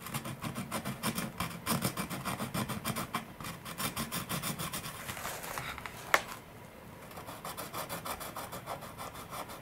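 Small needle file rasping in quick back-and-forth strokes on a carbon-fibre fuselage, scuffing off mold release wax before gluing. About six seconds in there is a single sharp click, after which the strokes resume more lightly.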